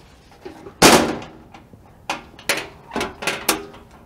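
Sheet-metal engine hood of a Ditch Witch SK755 mini skid steer closing with a loud bang about a second in. It is followed by a run of five lighter knocks as the closed hood is pressed down.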